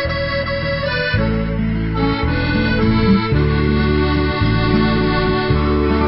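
Instrumental introduction of an Americana country song: sustained chords over low bass notes that change about once a second, with no singing.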